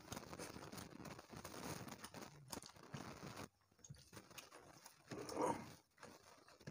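Eating by hand: soft chewing and mouth clicks with fingers mixing rice and curry on china plates, a dense patter of small clicks for about three seconds. About five seconds in comes a brief voiced hum from one of the eaters.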